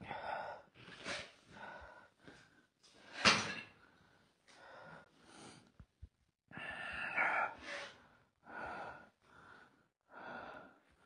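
A person breathing heavily and quickly close to the microphone, a puff roughly every second, the loudest a little over three seconds in.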